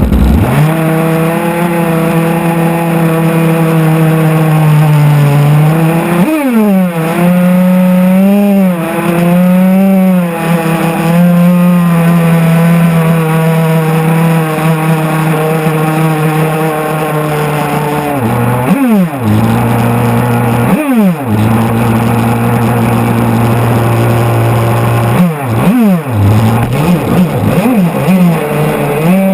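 Radio-controlled boat engine running at high speed with a steady high-pitched note, cutting in suddenly at the start. Several times the pitch drops sharply and climbs back as the throttle is eased and reopened.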